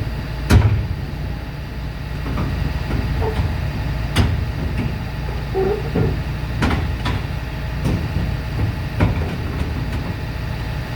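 Heavy diesel engine running steadily at a low rumble, with sharp metallic knocks every second or two.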